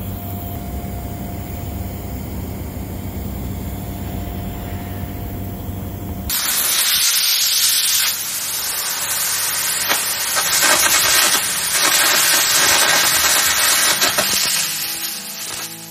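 A low steady hum, then about six seconds in carbon air arc gouging starts on steel: a loud, harsh hiss of compressed air with a crackling arc, which fades near the end.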